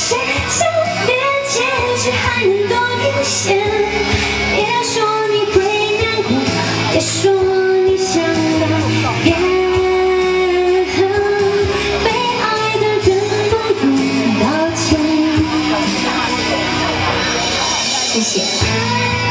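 A woman singing a Mandarin pop song live into a handheld microphone, holding long notes over pop accompaniment with a steady beat.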